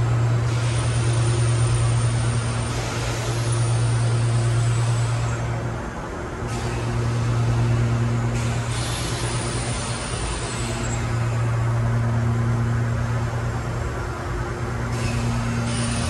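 Loud industrial plant machinery noise: a steady low drone with fainter tones above it, overlaid by stretches of hissing that start and stop abruptly every few seconds.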